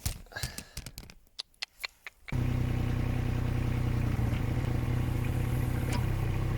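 A few light clicks and knocks of metal being handled, then the mini excavator's diesel engine comes in abruptly and runs at a steady speed, with a slight change in tone near the end as the machine is worked to reposition the arm.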